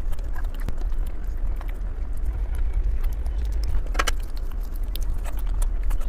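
A person chewing and crunching on Korean sweets: scattered small clicks and crackles, with one sharper crunch about four seconds in, over a steady low rumble.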